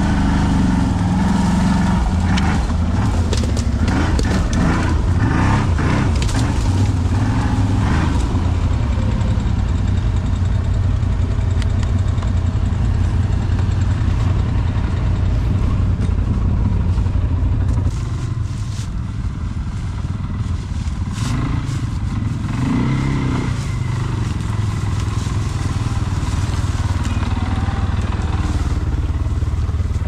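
ATV engine running steadily at low speed over rough forest ground, with scattered cracks and knocks from the machine working over the terrain. The engine note eases a little just past halfway.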